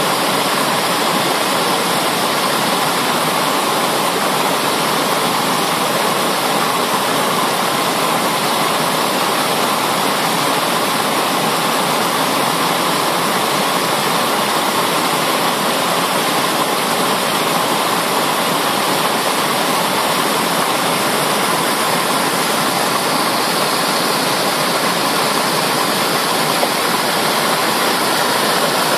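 Mountain creek rushing steadily over rocks, a loud, even roar of white water.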